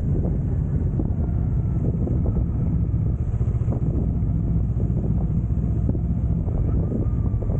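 Motorcycle engine running steadily, heard from on board the moving bike, with wind rushing over the microphone.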